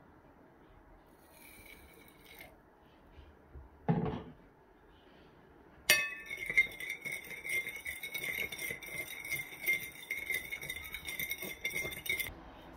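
A metal spoon stirring in a glass bowl, scraping and clinking rapidly against the glass and setting it ringing; it starts about halfway through and stops suddenly near the end. A brief thud comes just before it.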